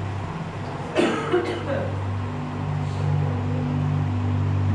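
A steady low mechanical hum runs under the room sound. About a second in there are two sharp knocks and a brief murmur of voices.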